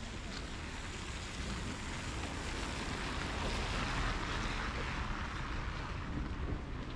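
Traffic on a wet road: a steady hiss of tyres on wet asphalt that swells for a couple of seconds in the middle, over a low rumble of wind on the microphone.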